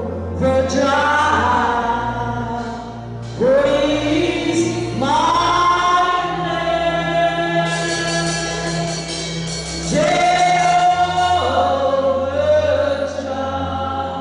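Choir singing a slow gospel song in long held notes over a steady low organ or keyboard accompaniment.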